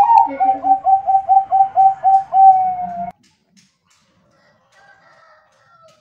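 Bangkok-type zebra dove (perkutut) singing a rapid run of about ten short cooing notes, about four a second, finished by one longer held coo. The song stops abruptly about three seconds in, and a few faint notes follow near the end.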